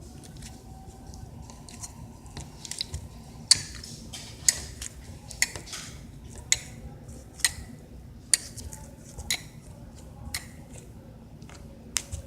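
Homemade slime being squeezed and kneaded by hand, giving short wet pops and clicks about once a second.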